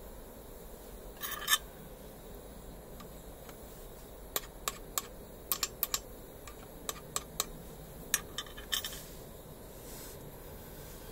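Irregular light clicks and clinks of small metal parts being handled, about fifteen in all, with a brief scrape about a second in and another near the end, over a faint steady background noise.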